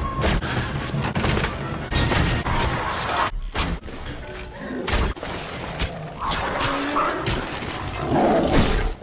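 Film battle soundtrack: orchestral score under a string of sharp crashes and impacts, growing louder and rougher near the end.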